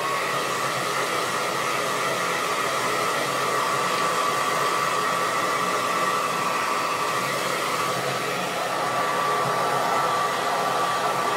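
Handheld hairdryer running steadily, blowing on a spot on the helmet to dry off an alcohol wipe. It comes up to speed right at the start, then holds an even rush of air with a steady motor whine.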